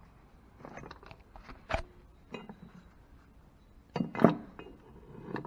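Metal hand tools clinking and knocking against the engine's oil housing and fittings while parts are fitted and tightened: a few scattered clinks, one with a short ring, and a louder cluster of knocks about four seconds in.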